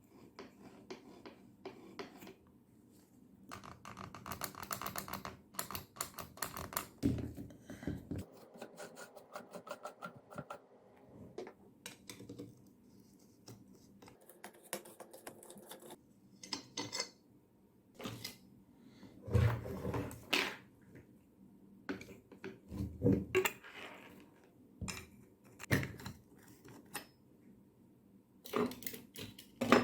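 Irregular clicks and light clatter of hard plastic and metal as a mini grinder is handled. There is a dense run of rapid clicking about four to ten seconds in, and a few sharper knocks later.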